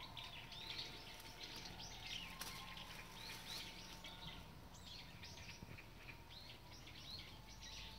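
Small birds chirping in many short, quick calls, faint, over a low steady background hum.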